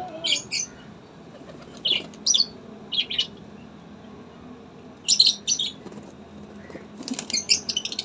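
Pigeons flapping their wings in short bursts of fluttering a second or two apart, with quicker, busier flapping near the end.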